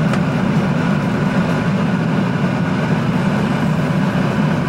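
Airliner cabin noise heard from inside the plane during the approach to landing: the engines and airflow make a steady, even drone.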